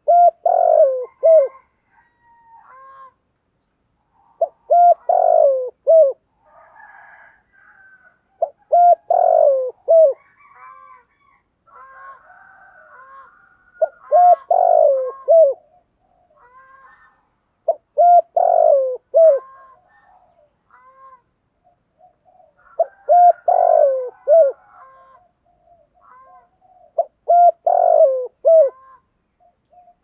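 Spotted dove cooing its song: seven phrases of a few short notes each, one about every four to five seconds. Fainter, higher bird calls come in the gaps.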